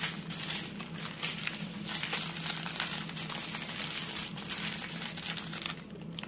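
Small plastic bags of diamond-painting drills crinkling as they are handled and sorted, easing off just before the end.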